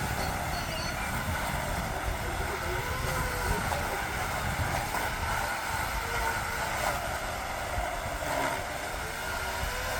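An engine running steadily, its pitch wavering slightly up and down, with some wind on the microphone.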